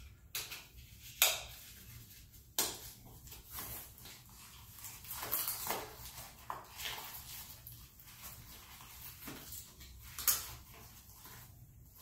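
Handling noise as a holster is fitted inside a waistband: rustling of cloth and plastic, with sharp clicks about a second in, about two and a half seconds in and again near the end.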